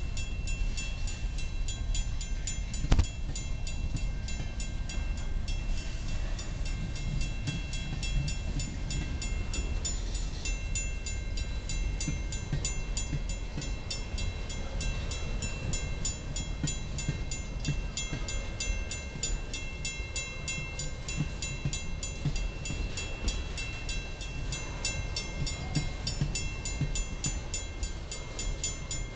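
Freight train of tank cars rolling past with a steady low wheel rumble and clatter, while a grade-crossing bell rings in rapid, even strokes. One sharp clank stands out about three seconds in.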